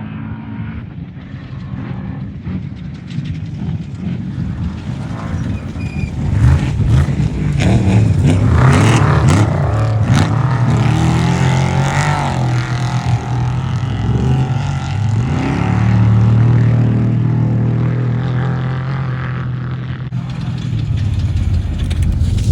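Off-road race vehicle engine growing louder and revving, its pitch rising and falling about eight to twelve seconds in, then running at a steadier pitch.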